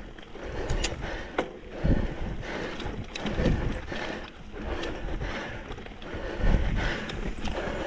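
Mountain bike rolling over a rough, rocky trail: rattling clicks and knocks from the bike, over a low rumble that swells about every one and a half seconds.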